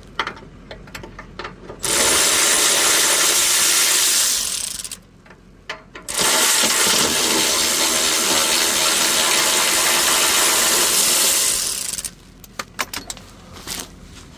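A power tool run in two long bursts, the first about three seconds and the second about six, starting and stopping sharply, as the rear engine mount bolts are taken out. Small clicks and knocks of tool handling come before and after.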